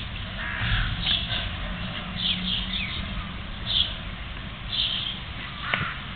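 Macaque monkeys calling: a string of about ten short, high-pitched calls, several in quick succession, over a steady low background hum.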